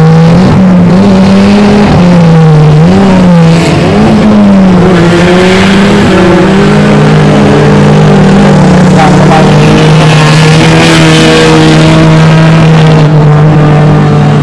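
Banger cars' engines revving, the pitch rising and falling for the first few seconds and then holding steadier from about six seconds in.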